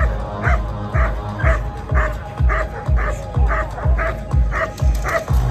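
A dog barking repeatedly while lunging at a handler's bite sleeve during protection work, over loud music with a heavy beat about twice a second.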